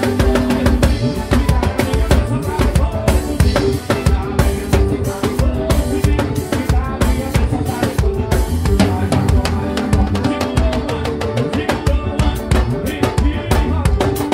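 Live gospel worship band playing, with the acoustic drum kit close and prominent: quick kick, snare and cymbal hits driving over bass guitar and keyboard.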